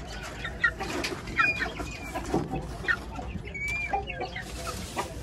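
Hens clucking with many short, scattered calls and chirps, as a flock feeds on scattered food.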